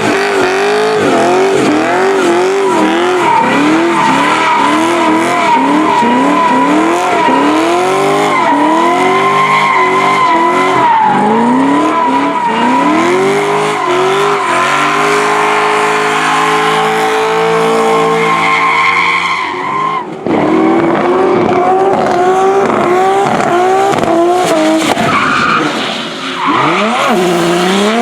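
Drift car engine revving hard in quick up-and-down swings while the tyres squeal steadily under sliding. For a few seconds past the middle the engine is held at high revs. About twenty seconds in the sound breaks off abruptly, and then the revving and squeal pick up again.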